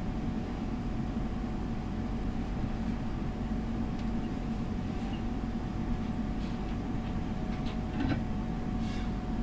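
Steady low rumble of a commercial kitchen's gas range, with a faint constant hum and a few light clicks near the end.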